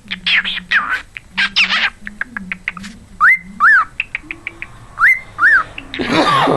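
Cockatiel chattering in quick chirps, then giving a two-note wolf whistle twice, a rising swoop followed by a rise-and-fall. A louder, harsher call comes near the end.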